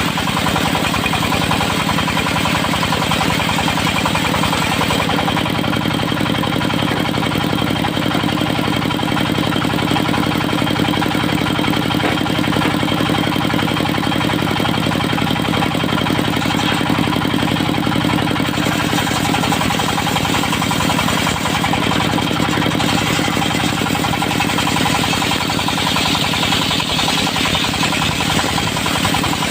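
Diesel engine of a portable circular sawmill running steadily with a fast, rattling pulse.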